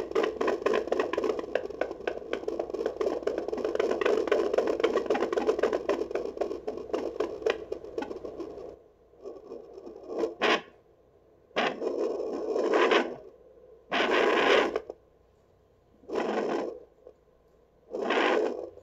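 Handheld fetal doppler's speaker giving a dense crackling hiss as the probe slides over a pregnant dog's gel-covered belly in search of puppy heartbeats. About nine seconds in the hiss drops away, leaving five short scraping bursts a second or two apart.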